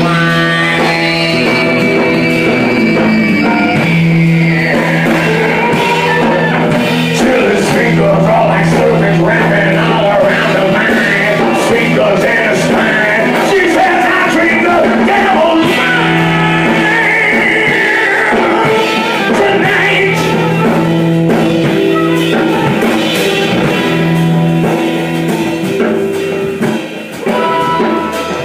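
Band music: a bluesy rock number with a repeating bass line and some singing, loud and steady, dipping briefly near the end.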